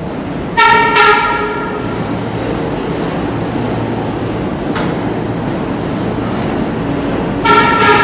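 Pullman Standard R46 subway train rolling into the station with steady running noise. Its horn gives two short toots about a second in and two more near the end, with a single sharp click in between.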